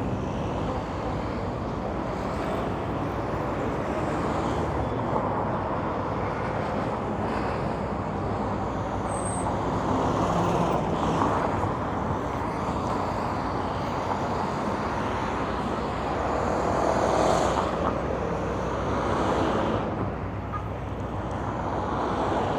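Steady city traffic: motor vehicles running and passing, swelling louder a few times as vehicles go by.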